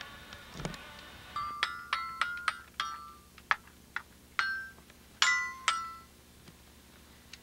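Children's toy xylophone, its metal bars struck with a mallet: about a dozen uneven, ringing notes at different pitches, the loudest a pair of hits near the end.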